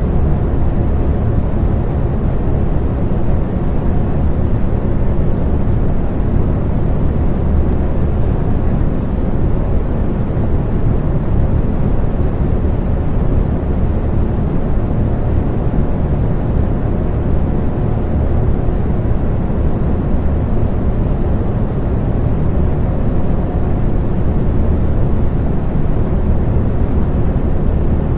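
Electric fan running at a steady speed: an even, low rushing hum with a faint motor tone, unchanging throughout.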